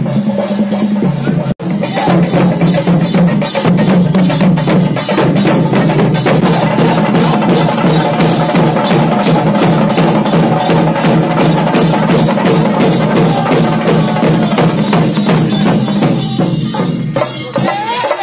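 Fast, dense drumming on rope-tensioned barrel drums beaten with sticks, over a steady low drone. The sound drops out briefly about a second and a half in.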